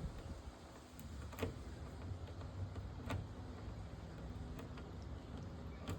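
Screw being turned by hand into a plastic wheelie bin to fix a bin latch: a few faint separate clicks over a low background rumble.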